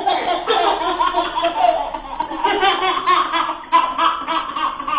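Laughter, in quick repeated bursts with only brief breaks.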